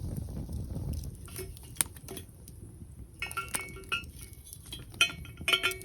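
Metal camp cookware and utensils clinking together: a series of sharp knocks, some with a short metallic ring, the loudest near the end.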